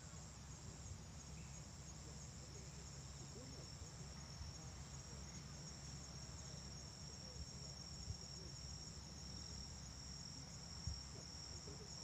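Insects trilling steadily in coastal grass: one unbroken high note with a faintly pulsing one above it. Underneath runs a low, even rumble of sea breeze, and there are a couple of faint knocks in the second half.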